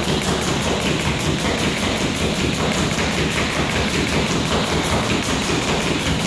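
Speed jump rope striking the wooden floor in a rapid, even rhythm, about six ticks a second, as the jumper does the alternate-foot speed step.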